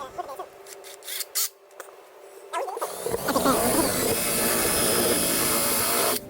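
Power drill running steadily for about three seconds, starting about three seconds in and cutting off suddenly near the end, after a few light clicks.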